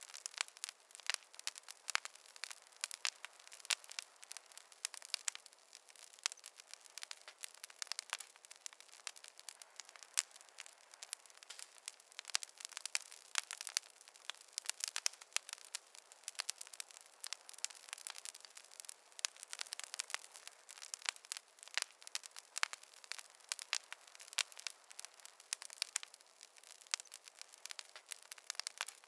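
Campfire crackling: wood burning with a dense, irregular run of sharp pops and snaps.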